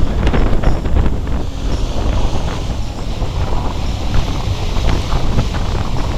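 Wind buffeting the microphone in gusts on the open deck of a pleasure boat under way.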